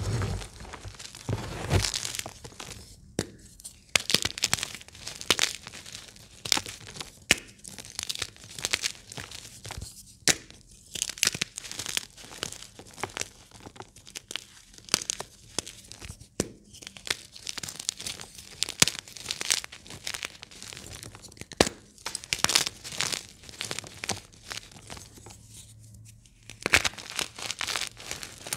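Bare hands crushing and crumbling blocks of plain gym chalk (magnesium carbonate): irregular dry crunches and sharp snaps as the chunks break into powder, with a few short pauses between handfuls.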